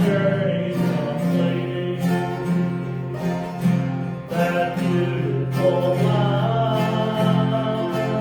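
Acoustic guitar strumming chords in a wordless instrumental stretch of a gospel song.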